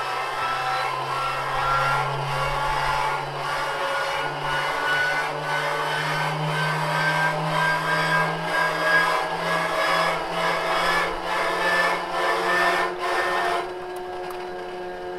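Inertia starter of a Shvetsov ASh-62 radial aircraft engine being hand-cranked, its flywheel winding up with a whine that climbs slowly in pitch and pulses regularly with the cranking. Near the end the cranking noise drops away and the flywheel's whine carries on at a steady pitch, spun up ready to engage the engine.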